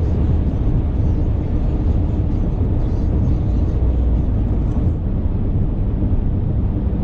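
Steady low rumble of a car driving at highway speed, heard from inside the cabin: engine and tyre noise with no sudden events.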